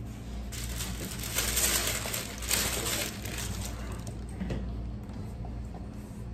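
Paper napkin being rubbed and crumpled in the hands, a crackling rustle for about three seconds that is loudest in the middle, over a steady low room hum.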